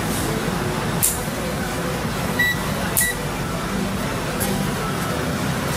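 Steady background hiss and hum with a few sharp clicks, about 1, 3 and 4.5 seconds in, and two very short high electronic beeps about half a second apart.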